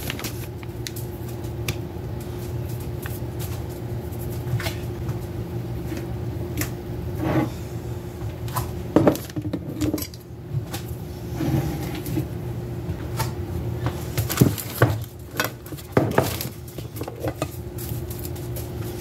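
Dishes, pan lids and serving utensils clinking and clattering now and then as food is served onto a plate, over a steady low hum.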